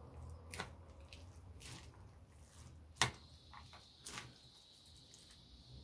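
Plastic spatula stirring yogurt through shredded lettuce, corn and chicken on a metal tray: faint wet squishing with a few sharp clicks, the loudest about three seconds in.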